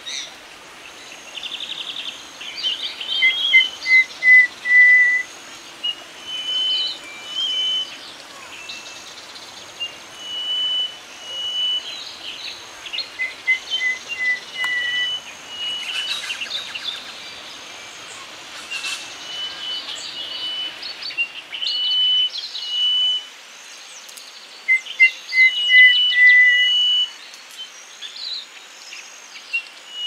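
Little grassbird (Poodytes gramineus) singing: high, clear whistled notes repeated over and over, mixed with chirps. About every eleven seconds there is a short run of quick notes at a lower pitch.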